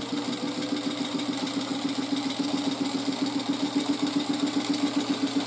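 Vintage black Singer electric sewing machine running at a steady speed, its motor humming under a fast, even clatter of needle strokes as it stitches a fabric shoulder strap.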